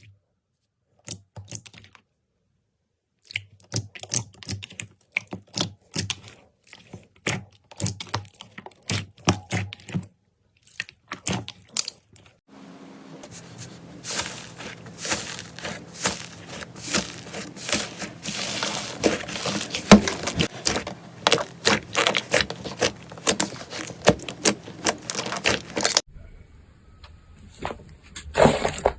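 Slime handled close to the microphone, crackling and popping in sharp clicks. The clicks are sparse and uneven at first, then from about halfway a dense run of crackling sits over a steady low hum, pausing briefly near the end.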